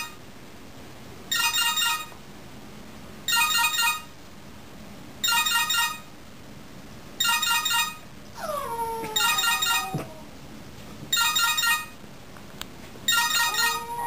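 Cell phone ringtone: a trilling electronic ring repeating about every two seconds. A French Bulldog howls along with it, one long falling howl about eight seconds in and a short one near the end.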